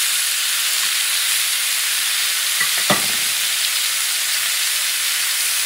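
Boneless ribeye steak sizzling steadily on a hot ridged grill pan as it is turned with tongs and set back down for crosshatch grill marks. One sharp click sounds about three seconds in.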